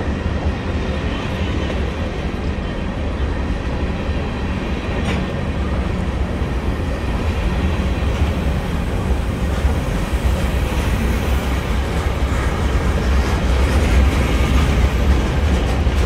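Freight train cars (covered hoppers, then boxcars) rolling past with a steady rumble of steel wheels on the rails. The rumble grows a little louder in the second half.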